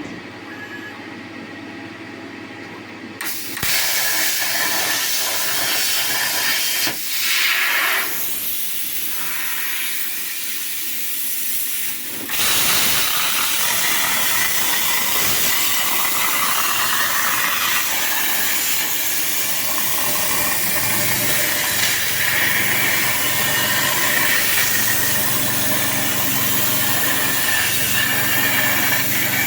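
CNC plasma cutter cutting steel sheet: a loud, steady hiss of the plasma arc and compressed air. It starts about three seconds in after a quieter hum and changes level abruptly a few times.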